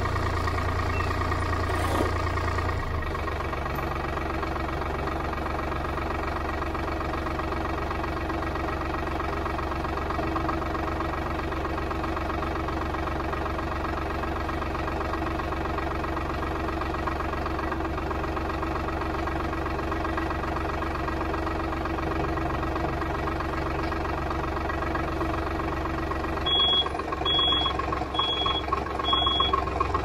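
Farm tractor engine running steadily, its low note dropping about three seconds in and getting louder and rougher near the end. Four short high beeps sound about a second apart near the end.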